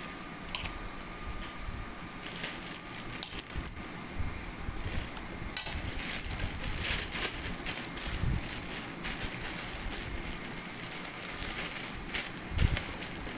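A dog eating, with irregular crunching and clicking as it chews, over a steady background hiss; a couple of louder low thumps.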